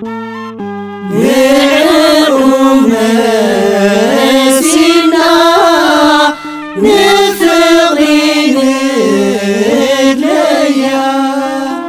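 Choir singing a Tigrinya Ethiopian Orthodox Tewahedo hymn (mezmur) in unison over an instrumental melody of stepped, held notes. The voices come in loudly about a second in, break off briefly midway, and fade back to the instrument near the end.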